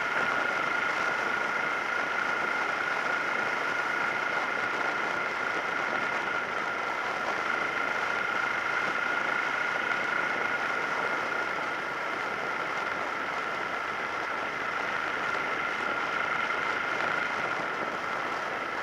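Suzuki SV650S V-twin motorcycle cruising at steady speed, heard from a camera mounted on the bike: a steady rush of wind and road noise with a constant high tone running through it.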